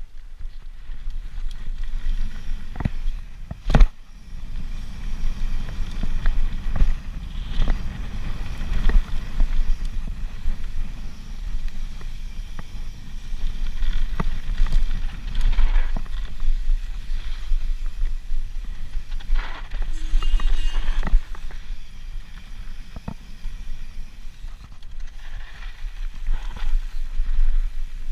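Mountain bike running fast down a dirt singletrack: tyres rumbling and crunching over the trail and wind buffeting the microphone, swelling and easing with speed. Sharp knocks and rattles come from bumps in the trail, the loudest about four seconds in, and there is a brief squeal around twenty seconds in.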